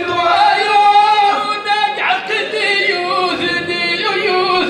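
Unaccompanied male singing through a microphone: a Middle Atlas Amazigh sung poem in long held, wavering notes, with no instruments.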